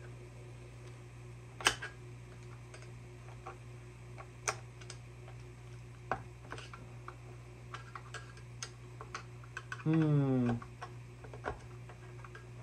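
Small metallic clicks and taps of a screwdriver prying and probing at a chainsaw's clutch and chain-brake parts, irregular, with two sharper clicks in the first few seconds. About ten seconds in, a brief grunt falling in pitch, over a steady low hum.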